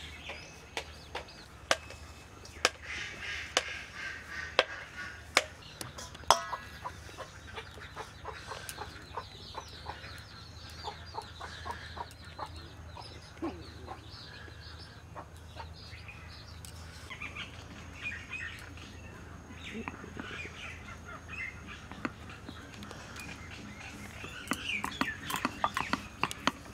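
Dough being worked by hand in a steel bowl and then rolled with a wooden rolling pin on a marble board: scattered sharp clicks and knocks, growing denser near the end. Chickens clucking and small birds chirping in the background.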